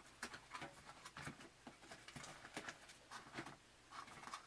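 Faint, irregular taps and rustles of packaging and accessories being handled while unpacking.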